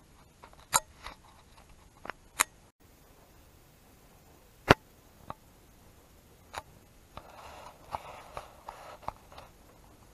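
Handling noise from a handheld camera: a few sharp, separate clicks, the loudest about halfway through, then a couple of seconds of soft rustling near the end.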